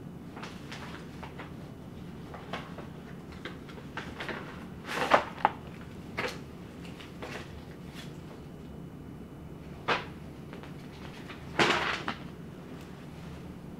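Sheets of paper being handled on a stone kitchen counter: pages lifted and turned and the stack set down, in a few short, sharp rustles and taps, the loudest about five seconds in and near the end, over a low steady hum.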